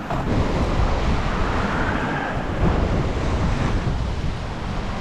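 Ocean surf washing against the rocks, with gusting wind buffeting the microphone.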